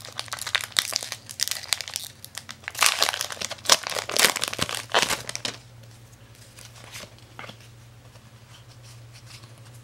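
Foil wrapper of a Pokémon trading-card booster pack crinkling as it is torn open, for about the first five and a half seconds. After that it goes much quieter, with only a few light ticks as the cards are handled.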